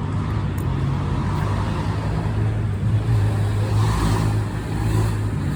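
A motor vehicle running: a steady low rumble, swelling briefly about four seconds in.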